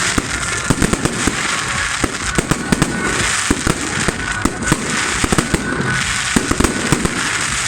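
Fireworks display: a continuous stream of bangs and crackling, several bursts a second, with no pause.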